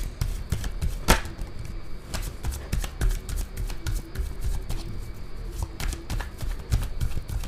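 A deck of tarot cards being shuffled by hand: an irregular run of soft card slaps and flicks, with one sharper snap about a second in.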